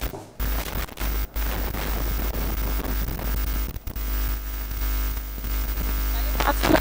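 Electrical hum and static hiss on the audio line, with a steady low mains hum underneath. The sound cuts out briefly a few times.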